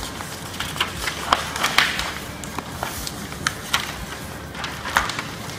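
Sheets of printer paper being folded and creased by hand by several people at once: continuous rustling with irregular sharp crinkles and taps of paper on a tabletop.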